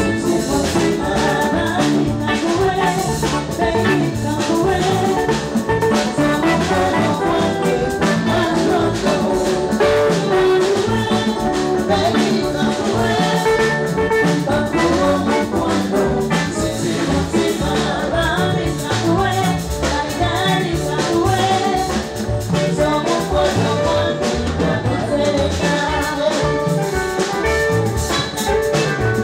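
Live band music with a steady beat: congas, electric guitar and keyboard, with a woman singing.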